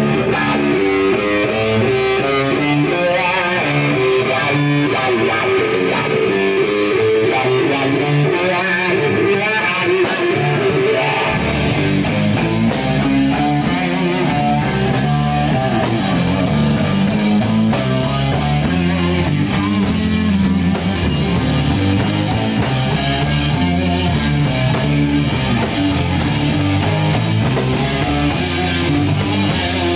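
Live heavy metal band playing: electric guitar riffing with sparse drumming, then bass and full drum kit come in about eleven seconds in and the band plays on together.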